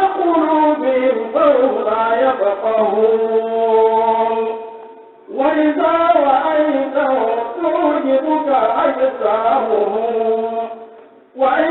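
A voice chanting in long, melodic, drawn-out phrases, each trailing off before the next begins: one ends about five seconds in and another starts straight after, and a third begins near the end.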